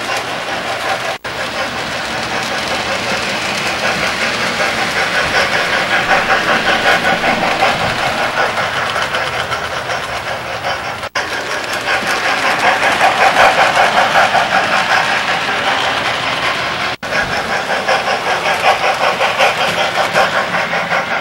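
Model train running on its layout track: a fast, steady clatter of small wheels on rail, growing louder twice as the train comes near.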